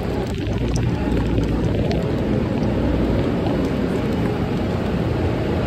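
Steady low rumble and hiss of a SEPTA Market-Frankford Line train beside the platform, with faint scattered clicks.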